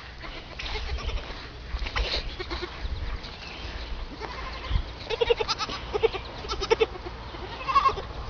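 An animal calling: a string of short, pitched calls, most of them coming close together in the second half.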